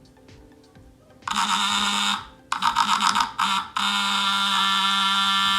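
Tiny cell-phone-style vibration motor with an offset weight rattling a small sounding board, making a loud, harsh buzz. It starts about a second in, cuts out and stutters on and off, then buzzes steadily through the second half; it is not yet tuned to the sound wanted.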